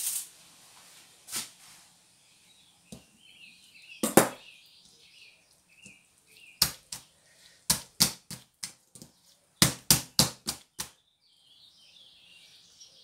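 Hands slapping, pressing and lifting an oiled strand of dough on a plastic oilcloth tablecloth: a series of sharp, irregular smacks and clicks, coming in a quick run in the second half.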